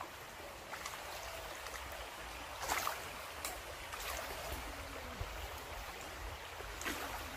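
A shallow river running over stones, a steady stream sound, with a few short louder bursts of water noise about three seconds in and again near the end.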